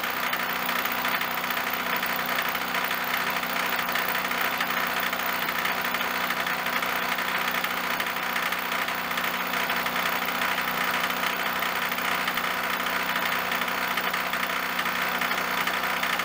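Vertical milling machine running steadily, a 3/4-inch end mill cutting a metal part held in the vise.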